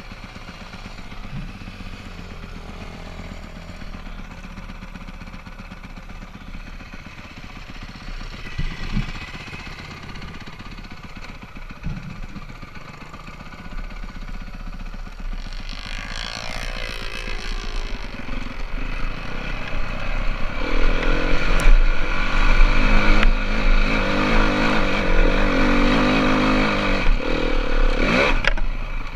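Dirt bike engine heard close up from the rider's helmet, running low and even at first. About halfway through it revs up with a rising pitch and then runs hard and loud, dropping off just before the end.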